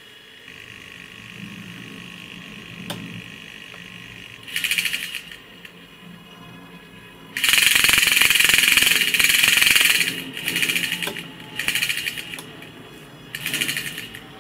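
Aircraft engine temperature indicator's AC servo motor and gear train whirring in bursts as it drives the needle and mechanical digital counter down to a lower temperature setting. A short burst, then a long loud run of about two and a half seconds, then three shorter bursts.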